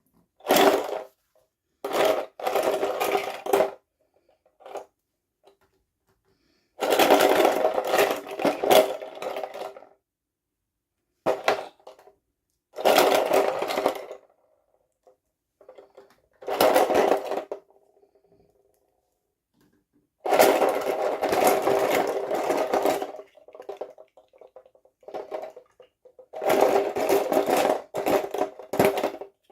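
Toy packaging being handled and opened: crinkling, crackling plastic in about eight short bursts, each half a second to three seconds long, with dead silence between them.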